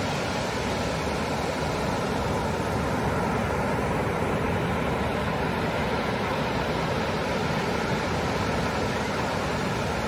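Ocean surf breaking in several lines offshore, a steady, unbroken rush of waves with no single crash standing out.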